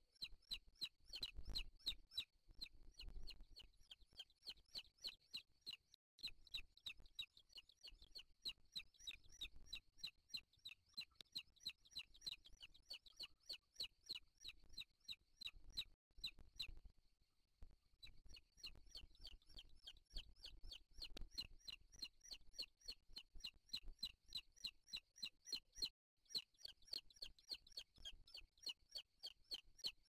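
Booted eagle chicks' begging calls: thin, high peeps repeated about three times a second, with a short pause about halfway through.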